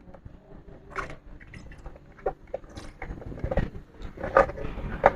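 Scattered small clicks, taps and scrapes of hand tools working on a circuit board while a blown audio amplifier chip is desoldered and pried off.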